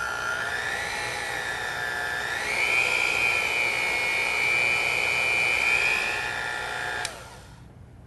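Electric motor of a Cuisinart HM-90S Power Advantage Plus 9-speed hand mixer running with a high whine, being stepped through its speeds. The pitch steps up about two and a half seconds in and eases down slightly near six seconds. It switches off with a click about seven seconds in.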